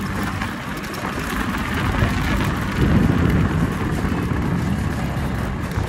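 Ride noise from a moving Bajaj Chetak scooter: steady wind rushing over the microphone with low road rumble.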